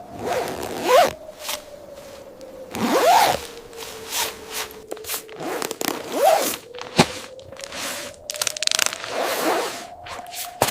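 A zipper being drawn in several short rasping pulls, with a sharp click partway through. A faint steady hum runs underneath.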